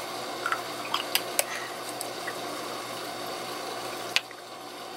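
Home aquarium water bubbling steadily, with a few light clicks about a second in and one sharper click near the end.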